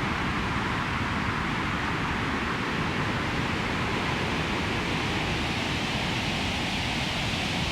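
Layered white noise synthesized and filtered in Ableton to imitate wind and rain, with reverb added, giving a steady hiss over a low rumble. Its tone drifts slowly.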